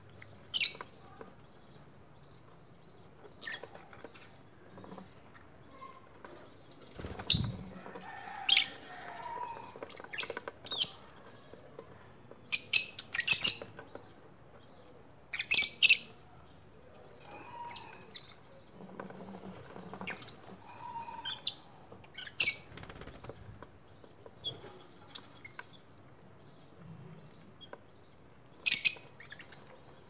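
Pet cockatiels and lovebirds in an aviary calling: short, sharp, high chirps and screeches every second or two, with the loudest clusters about halfway through.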